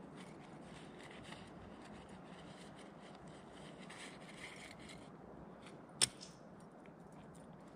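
Faint rustling and scraping of things being handled, over a steady low hiss, with one sharp click about six seconds in.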